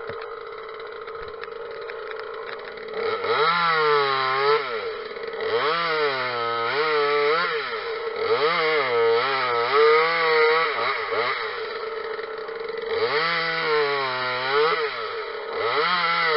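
Parker 26cc two-stroke top-handle chainsaw idling, then revved in several bursts to cut logs. In each burst the engine pitch rises, sags as the chain bites into the wood and picks up again, dropping back to idle between cuts.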